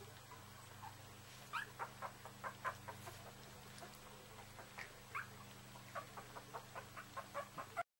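Yorkshire Terrier puppy, three to four weeks old, giving quick runs of short, high squeaks and whimpers while its mother licks its face, over a low steady hum. The sound cuts off suddenly just before the end.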